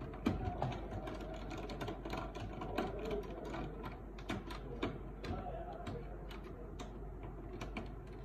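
Irregular light clicks and rattles of a screwdriver and screw being worked on the plastic and metal frame of a Canon LBP 6000 laser printer's fuser unit as its last screw comes out, over a low steady hum.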